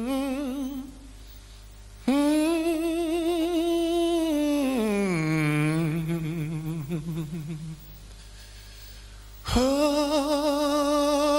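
Male blues vocal moaning without words, holding long notes with a wide vibrato in three phrases; the long middle phrase slides down in pitch about halfway through, and a short pause separates each phrase.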